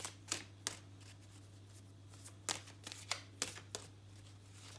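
Tarot cards being shuffled and handled: a series of short, sharp card snaps, a few near the start and a quicker cluster in the second half, over a steady low hum.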